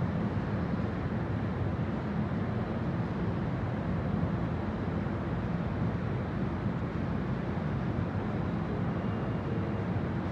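Passenger train pulling away from an underground station platform into the tunnel: a steady low rumble of wheels and running gear, heard in the enclosed station.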